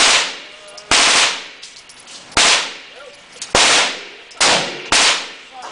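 Gunfire: six loud shots at uneven spacing, about a second apart, each with a short echoing tail. The shots come too fast for one bolt-action rifle, so more than one gun is firing.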